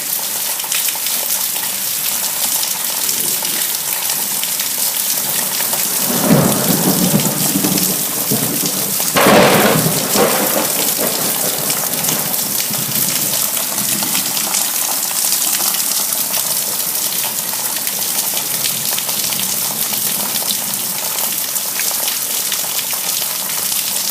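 Steady heavy rain hissing during a thunderstorm, with two rolls of thunder: one about six seconds in and a louder one about nine seconds in.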